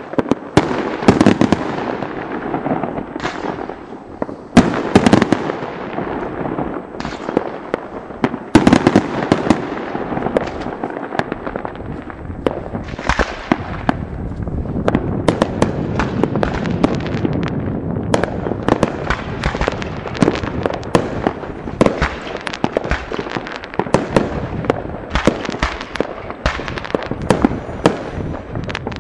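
Aerial fireworks exploding overhead. A few big, separate bangs come in the first nine seconds, then a dense, rapid run of bangs and crackle.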